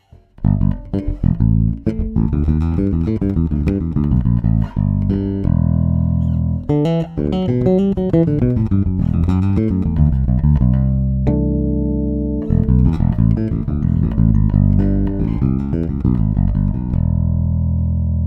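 Warwick Rockbass Fortress 4 electric bass guitar played solo: a busy line of quick plucked notes, a held note about two thirds of the way in, then more runs ending on a long ringing note.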